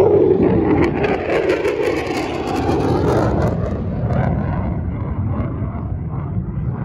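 F-16 fighter jet engine roaring as the jet flies past and away. The rough, crackling roar is loudest at the start and fades slowly as the jet recedes.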